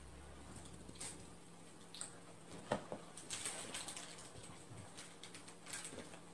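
Faint scuffs, rustles and soft knocks of a cat scrambling and leaping on carpet and towels, the sharpest knock a little under three seconds in. A low hum stops about a second and a half in.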